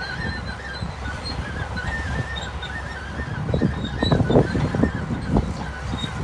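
Heavy earthmoving machinery running with a steady low engine rumble. A run of irregular knocks and clanks comes in about the middle. A thin, wavering high chirping is present throughout.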